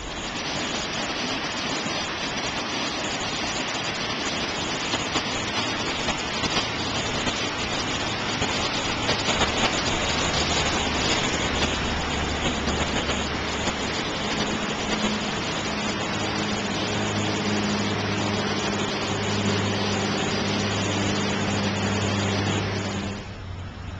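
Rushing creek water pouring over rocks, a steady rush, with a low hum joining about two-thirds of the way through. It cuts off abruptly near the end.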